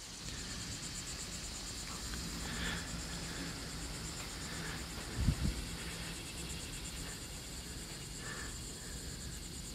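Insects trilling steadily outdoors, a high, finely pulsing buzz, over a low rumble, with a brief low thump about five seconds in.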